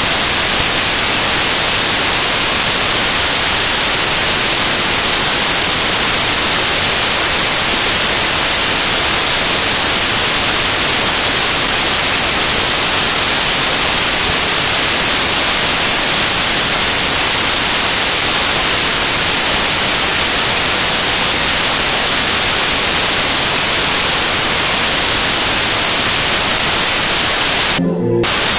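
Loud, steady static hiss like white noise filling the whole sound track, with no music or voices coming through; it cuts out briefly near the end. A fault in the recording or upload.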